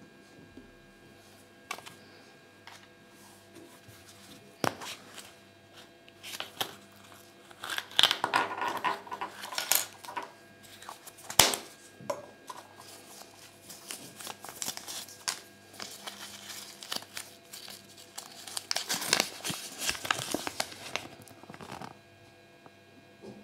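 Crinkling of a Kinder Surprise foil wrapper and paper toy leaflets being handled, loudest about a third of the way in and again near the end. A few sharp clicks from small plastic toy parts fall in between.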